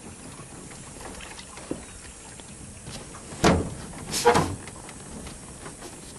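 Two loud knocks on a small boat's hull, less than a second apart, a little past halfway, with a few lighter knocks around them, as the boat is pushed off from the bank.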